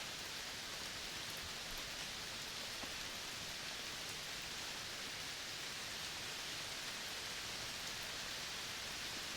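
Steady, even outdoor hiss of a forest ambience, brightest in the upper range, with a few faint ticks and no distinct birdsong.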